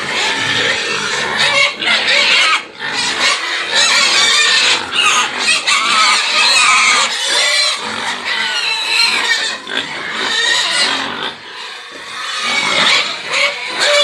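A group of young pigs squealing almost without pause, easing off briefly about eleven seconds in before rising again.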